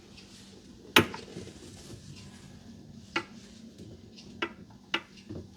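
Handling noise in the cabinet under a kitchen sink: one sharp metallic clink about a second in, then a few lighter clicks and taps as tools and water-line fittings are handled.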